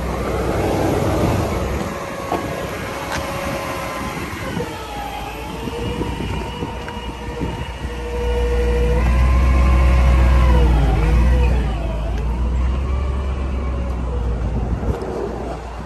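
Ram 5500's 6.4-litre gas V8 running steadily, with a steady whine that dips and rises in pitch several times and a heavier rumble about eight to eleven seconds in.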